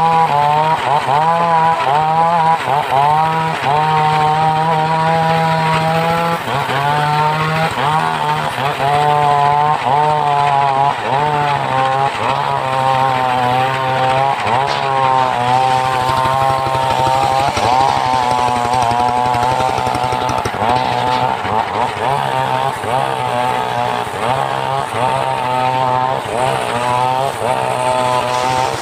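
Engine-driven homemade circular sawmill running under load as it cuts a log. The engine runs steadily while a higher saw whine keeps wavering up and down in pitch as the blade bites into the wood.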